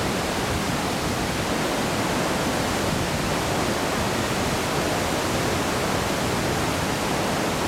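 Steady, even roar of falling water from the wide Doupotang Waterfall.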